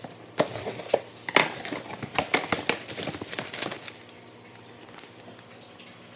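Knife slitting packing tape on a cardboard box, then the flaps pulled open over crumpled kraft packing paper: a quick run of sharp scrapes and crackles that stops about four seconds in.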